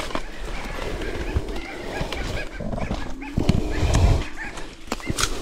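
A man grunting and breathing hard with effort as he climbs a coconut palm barefoot; the heaviest grunts come about three and a half seconds in. Short high bird chirps sound throughout.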